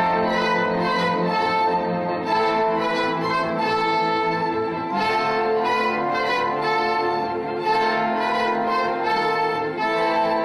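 Symphony orchestra playing, with the brass to the fore, in held chords that change every second or so.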